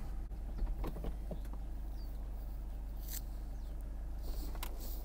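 Mercedes C220d Cabriolet's power fabric soft top opening: a steady low motor hum with a few clicks about a second in and two sharper knocks in the second half.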